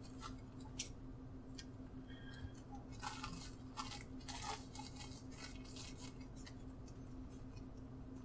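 Scissors snipping through thin plastic bag material to trim its edge: a handful of short, faint cuts, most of them clustered from about three to four and a half seconds in.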